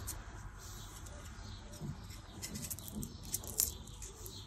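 Garlic cloves being peeled by hand: faint dry crackling and rustling of the papery skin, with scattered small clicks.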